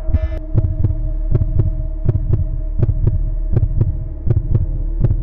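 Heartbeat sound effect, a double thump about every three-quarters of a second, over a steady low drone tone.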